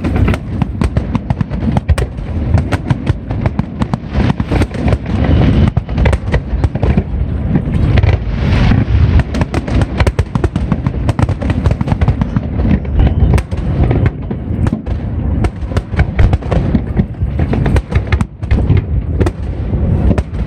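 Aerial fireworks going off in quick succession, a dense run of booming bursts and crackling with no pause between them.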